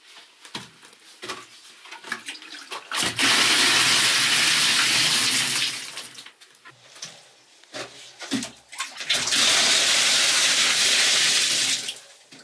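Water poured out of a clay pot and splashing into a bamboo-lined pool, in two pours of about two and a half seconds each. Light knocks and drips come between the pours.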